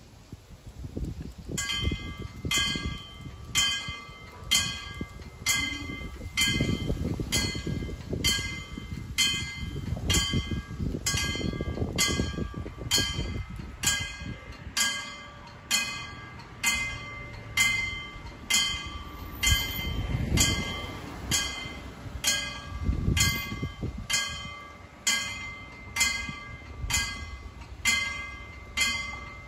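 Level-crossing warning bell ringing in steady repeated strikes, about one a second, starting about two seconds in: the crossing's warning signal as the barriers come down for an approaching train. Low rumbling noise runs underneath.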